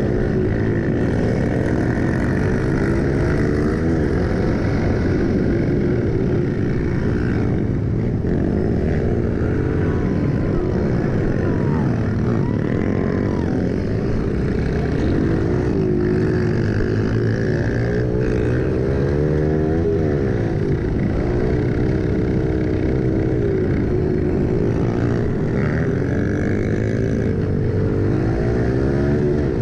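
Pit bike engine revving up and down repeatedly as the rider accelerates along the straights and slows for the turns on a dirt motocross track.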